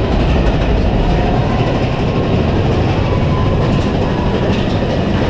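Big Thunder Mountain Railroad mine-train roller coaster running along its track, a steady rumble of wheels and cars heard from on board.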